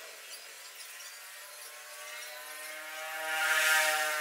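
A motor running, its pitch rising slowly as it grows louder to a peak near the end.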